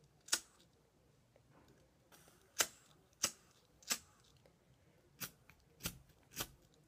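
Two disposable plastic lighters clicked in the hands: seven sharp clicks, half a second to two seconds apart.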